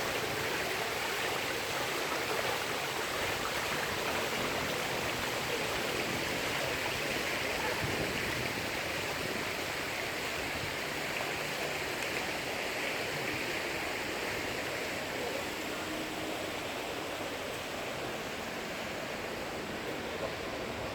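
Steady rush of water, an even hiss that runs on without a break and fades a little towards the end.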